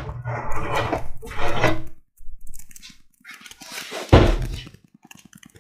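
A large plywood sheet being lifted, scraped along and knocked about as it is set aside, with one loud thud about four seconds in.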